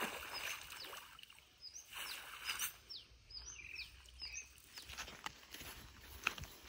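A wet cast net lifted out of pond water, splashing and dripping, while a bird repeats a short falling whistle several times. Footsteps on dry ground near the end.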